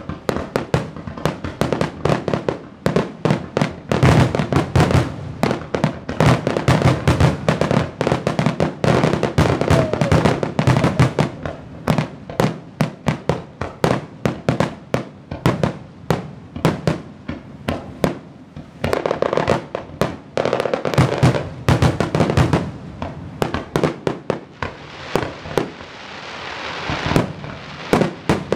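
Fireworks display: aerial shells launching and bursting in a rapid, near-continuous string of bangs, with a crackling hiss that builds near the end.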